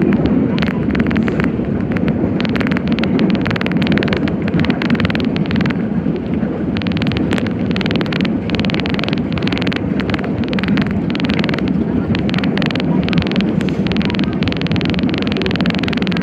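Nagoya Municipal Subway 5050 series train running, a loud steady rumble with a dense, irregular crackling laid over it from about two seconds in.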